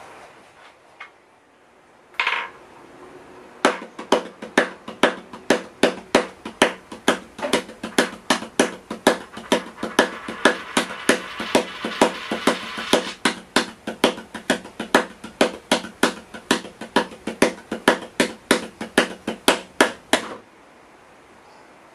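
Percussive music beat: sharp clicking knocks nearly three a second over a steady low tone, starting about four seconds in and cutting off suddenly near the end. A single knock comes about two seconds in.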